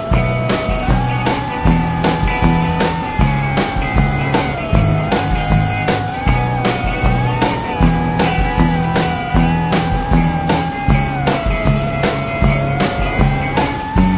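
Rock background music with a steady drum beat, a pulsing bass line and a sustained lead line that wavers in pitch.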